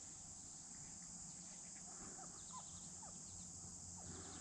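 Faint, steady, high-pitched insect chorus, with a few faint short chirps over it.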